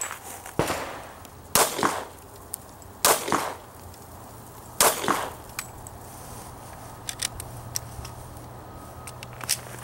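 Semi-automatic pistol fired strong-hand only: three loud, sharp shots about a second and a half apart, each with a short echo, after a softer report just after the start. A few light clicks follow near the end.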